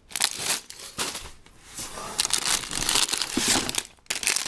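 Plastic Lego parts bags crinkling as they are handled, in irregular bursts with brief pauses.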